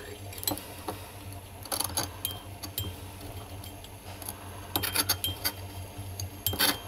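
Metal spatula scraping and clinking against a glass beaker while stirring wet crystals. The clicks are scattered, bunching up about two seconds in, around five seconds and near the end, over a low steady hum.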